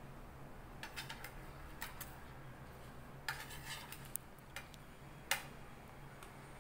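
A metal spoon clinking lightly against a ceramic plate and a plastic cup while spooning out a soapy liquid: a scatter of small clicks and taps, the sharpest about five seconds in.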